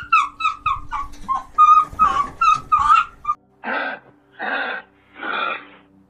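Fennec fox yelping: a rapid series of short, high calls that fall in pitch, about three a second, which stop abruptly a little over three seconds in. After that come breathy huffs, each about half a second long, a little over one a second.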